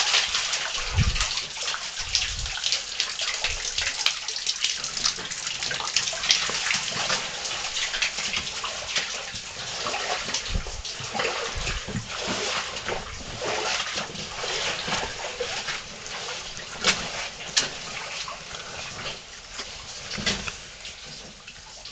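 Cave stream water splashing and sloshing irregularly, with a few short low thumps.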